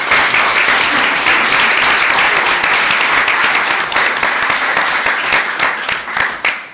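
Audience applauding: dense clapping that holds steady, then thins out and fades near the end.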